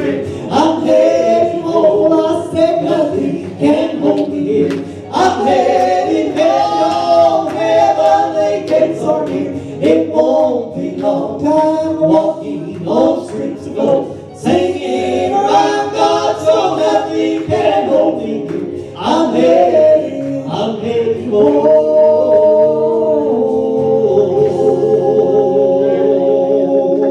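Gospel vocal group singing a song in several-part harmony, ending on a long held chord near the end.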